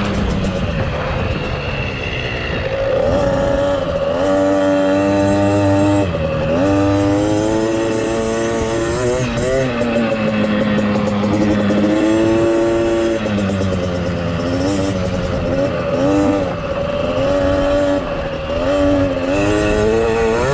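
KTM 50 Mini's small two-stroke single-cylinder engine pulling a child along a dirt track, its pitch rising and falling again and again as the throttle is opened and eased off.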